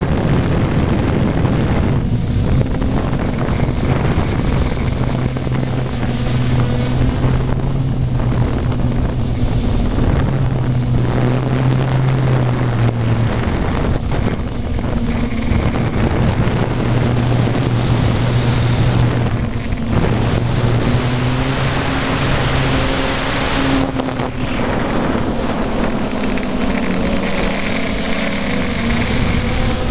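Electric motors and propellers of a small remote-controlled camera aircraft, recorded from the aircraft itself: a steady droning hum with a thin high whine, its pitch shifting a little as it flies, over a rush of air.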